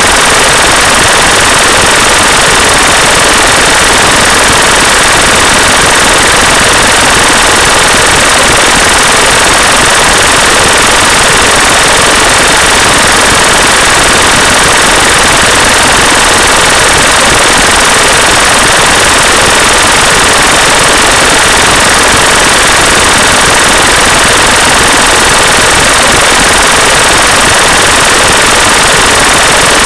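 A loud, steady, bright hiss of masking noise that does not change. It is a subliminal audio track, with spoken affirmations meant to lie hidden beneath the noise.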